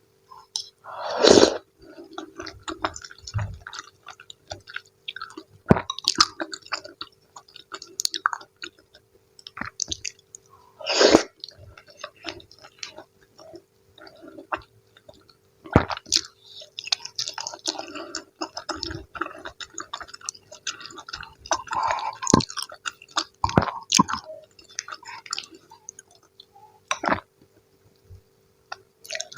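Close-miked eating sounds of sayur asem and fried tempeh: irregular wet chewing and squishing, broken by sharp clicks, over a faint steady hum.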